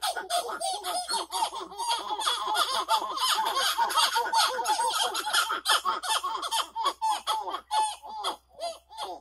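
Masked titi monkeys (sauás) giving their loud territorial call together in chorus: a rapid, dense run of short rising-and-falling hoots, thinning into separate phrases with gaps near the end.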